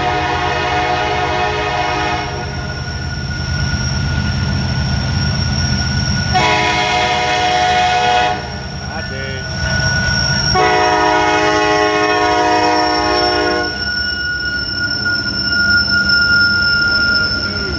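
Nathan K5LLA five-chime air horn on a CN SD70ACe diesel locomotive, blowing three blasts: one already sounding that ends about 2 s in, a second of about two seconds, and a longer third, over the steady low rumble of the locomotive and train passing.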